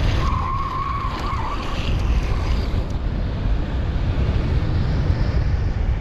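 Longboard's urethane wheels squealing in a hand-down slide: one steady, high squeal for about a second and a half, starting just after the start, over steady rushing wind and road rumble.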